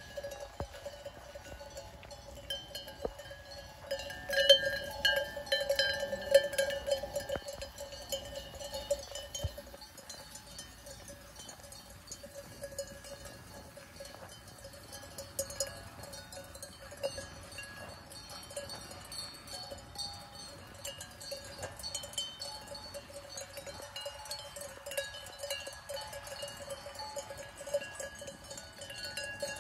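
Bells on a grazing sheep flock clanking and ringing irregularly, many at once, loudest about four to seven seconds in.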